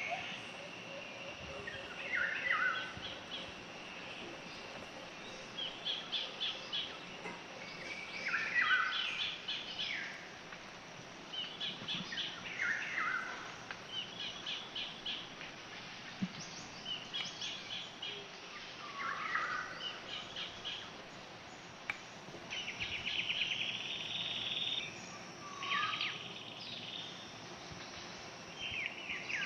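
Songbirds singing, with short chirping phrases repeating every two to three seconds over a faint steady hiss.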